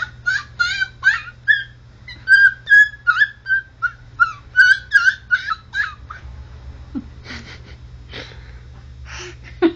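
Baby babbling a quick run of high-pitched 'ta-ta-ta' syllables, about three to four a second, trailing off after about six seconds into a few softer sounds.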